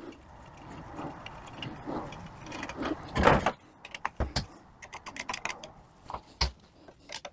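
Small metal parts of a 42RE automatic transmission valve body being handled and taken apart by hand: scraping and sliding, a louder rasp about three seconds in, then several separate sharp metallic clicks.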